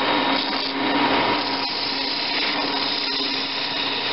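Wood lathe running with a steady motor hum while a skew chisel faces the end of a spinning wood block, a continuous hissing, scraping cut.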